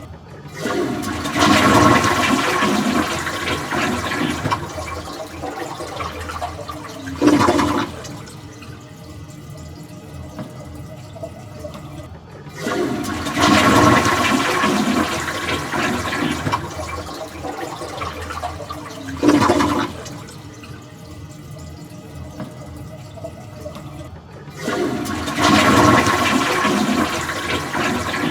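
Toilet flushing three times, about every twelve seconds. Each flush is a rush of water for several seconds, then a short louder surge, then a quieter steady hiss of water running as the tank refills.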